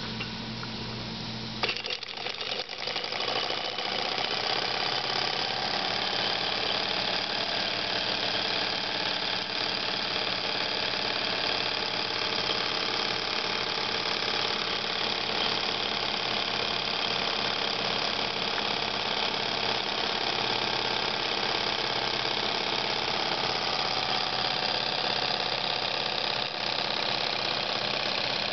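Jensen 55 model steam engine starting up about two seconds in, after a low hum, then running steadily at a constant speed. It belt-drives a small dynamo that powers a lamp.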